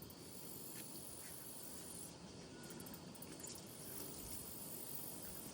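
Faint, steady outdoor background hiss with a few light clicks and a brief faint chirp about two and a half seconds in.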